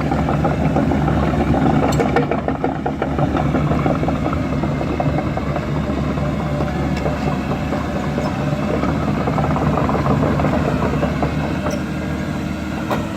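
Caterpillar 320D hydraulic excavator's diesel engine running steadily, with a few sharp knocks about two seconds in and near the end.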